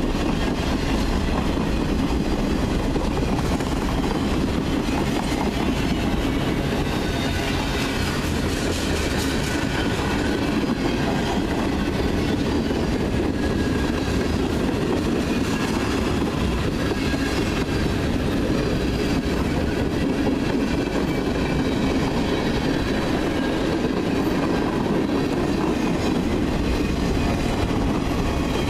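Freight train's boxcars and covered hoppers rolling past, a steady rumble and rattle of steel wheels on the rail.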